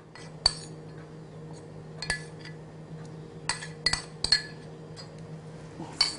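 A spoon clinking against a ceramic cup as food is scraped out of it: about six sharp clinks at irregular intervals, each with a brief ring, over a steady low hum.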